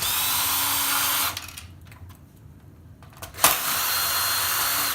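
Power drill-driver running in two bursts of about a second and a half each, the second starting with a sharp click, backing out screws to free a circuit board.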